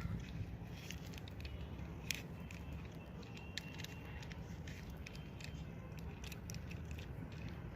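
Small 3×3 Rubik's cube being turned by hand: quick, irregular plastic clicks and clacks as its layers are rotated, a slightly louder clack about two seconds in. A low steady hum runs beneath.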